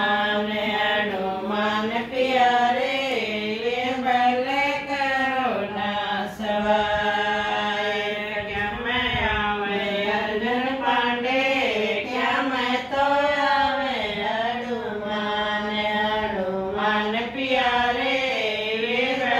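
Women singing a Hindi devotional folk song (geet) unaccompanied, in a chant-like melody with long held notes.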